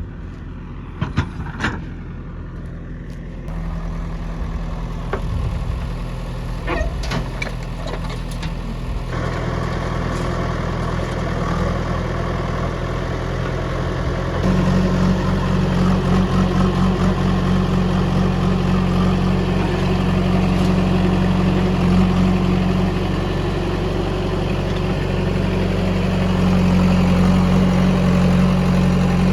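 Heavy diesel engine running, stepping up in pitch and loudness three times in the first half and then holding strong and steady. A few sharp knocks sound near the start and again about seven seconds in.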